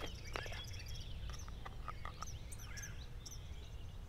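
Birds chirping and calling, with a frog giving a quick run of short croaks about halfway through, over a steady low rumble. A few clicks sound near the start.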